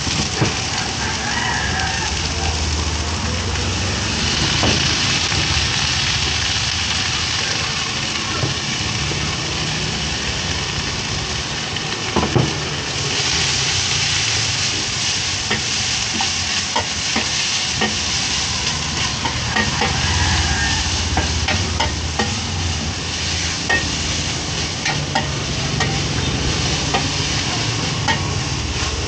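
Food sizzling in hot oil with a steady hiss that swells about four seconds in and again near the middle, with scattered short clicks through it.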